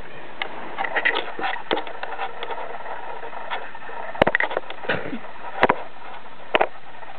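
Husky puppy nosing and bumping into the camera: scattered rustling clicks, then a few sharp knocks on the microphone, over a steady hiss.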